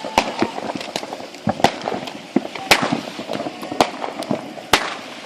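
Many fireworks and firecrackers going off in irregular sharp bangs and pops, several a second, the louder bangs each trailing a short echo.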